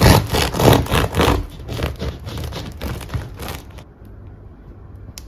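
A knife sawing through the crisp crust of a freshly baked round loaf of white bread, several rough scraping strokes about two a second that stop after about three and a half seconds.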